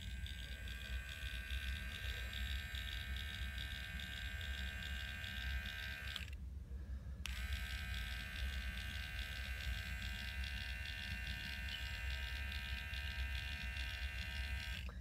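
Steady electrical hum and buzz with several high, unchanging tones, which cut out for about a second midway and then come back abruptly.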